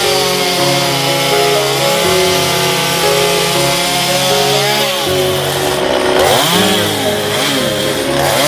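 Two-stroke Stihl chainsaw running at high revs while cutting into a block of western red cedar, its pitch dropping and rising with the load. In the last few seconds it revs up and down several times in quick sweeps.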